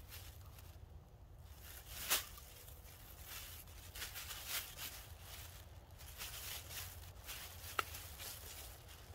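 Thin plastic bag crinkling and rustling as it is handled around a tree trunk and a stick is worked through its handles. A sharp click about two seconds in, and another near the end.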